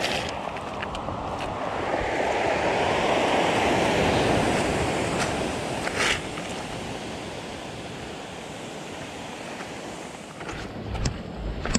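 Surf breaking and washing up a pebble beach: one wave swells to its loudest about three to four seconds in and then fades back to a steady wash. There is a single sharp click about six seconds in, and a low rumble with small knocks near the end.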